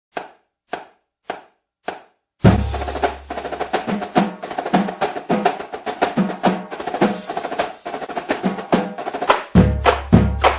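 Percussion-driven intro music: four sharp, evenly spaced clicks count it in, then a busy drum beat starts about two and a half seconds in, with a deep bass coming in near the end.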